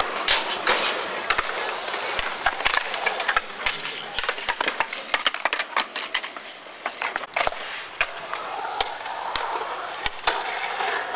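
Skateboard wheels rolling over concrete, with many sharp clacks and knocks of the board against the ground and ledge.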